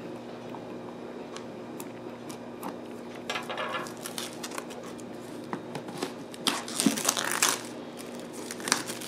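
Clear plastic shrink wrap being torn and peeled off a cardboard product box, crinkling, with scattered clicks and taps as the box is handled. The crinkling comes in two stretches, the louder one about two-thirds of the way through.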